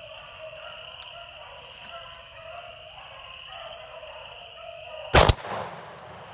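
A single shotgun shot about five seconds in, sharp and loud, with a short echo fading after it.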